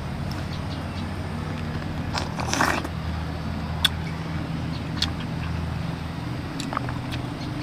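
A motor running steadily with a low hum, with a short rustle about two and a half seconds in and a few sharp clicks after it.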